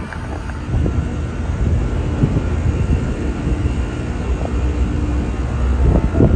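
Several Payne Sentry central air conditioner condensing units running together: compressors humming and condenser fans blowing, giving a steady drone with a few faint held tones over a heavy low rumble.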